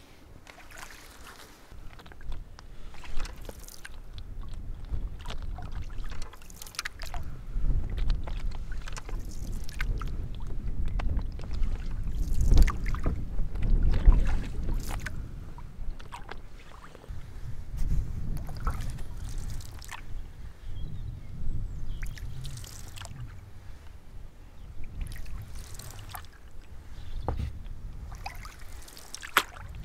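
A canoe being paddled: the paddle dips and pulls through the water in irregular strokes, with splashes and drips off the blade. Under them runs a low rumble that swells and fades, loudest about halfway through.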